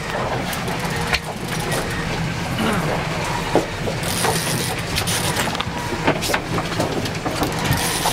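A fishing boat's engine running steadily, with wind and water noise and scattered short clicks.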